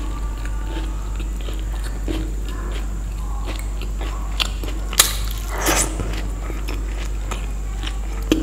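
Close-up eating sounds of Indian street-food chaat: chewing with small crisp crunches and crackles, and one sharp crunch about five seconds in, over a steady low hum.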